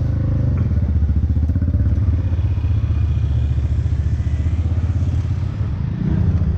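Motor scooter being ridden through traffic, its engine giving a steady low rumble.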